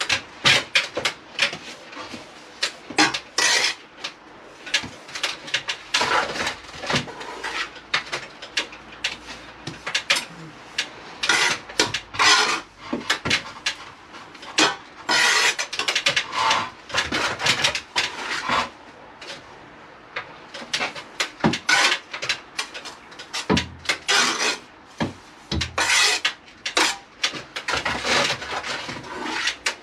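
Steel trowel scraping and clinking against mortar and brick in irregular strokes, some scrapes lasting about a second.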